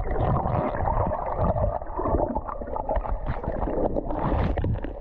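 Muffled underwater water noise heard through a submerged action camera: churning and gurgling with low thumps as it moves through the water, and a brief brighter splash-like burst about four seconds in.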